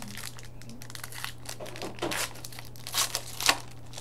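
Hockey card pack's wrapper being torn open and crinkled by hand: a run of short crackling rustles, loudest about three seconds in.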